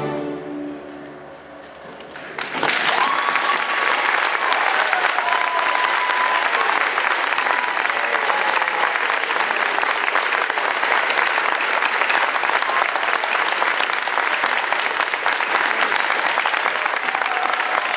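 A string orchestra's final chord fades away. About two and a half seconds in, an audience bursts into steady applause, with voices calling out among the clapping.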